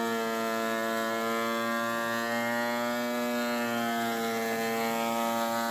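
Benchtop thickness planer running under load as a Douglas fir board feeds through it, a steady high-pitched whine. The pitch lifts slightly near the end.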